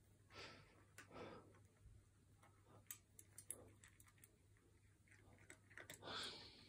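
Near silence: faint, scattered clicks of a cat crunching dry cat biscuits from its bowl, with a few soft breaths and a low steady hum.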